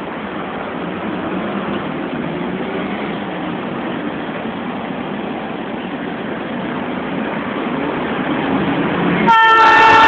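Three Ferrosur diesel locomotives running light, their rumble growing slowly louder as they approach. About nine seconds in, the lead locomotive's air horn starts, loud and sudden, a chord of several steady tones.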